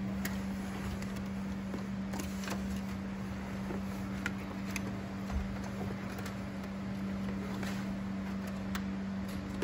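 Soft rustling and scattered light clicks of a wire and floor carpet being handled, with one soft low thump about five seconds in, over a steady low hum.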